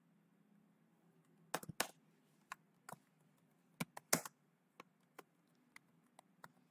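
Typing on a computer keyboard: a run of irregular key clicks, starting about a second and a half in.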